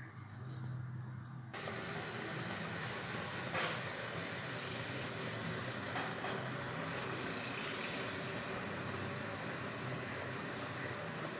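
Pumpkin curry simmering in an open clay pot: a steady bubbling hiss with fine crackle, which starts about a second and a half in, with a couple of louder pops.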